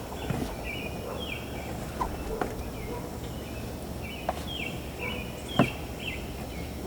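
A songbird chirps over and over, short high notes that fall in pitch, with a few sharp knocks in between; the loudest knock comes a little past halfway.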